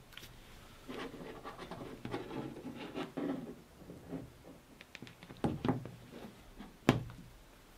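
Handling noise from small plastic-cased electronic gadgets and their cables: soft rubbing and scattered light clicks, then a few knocks. A single sharp click near the end is the loudest sound.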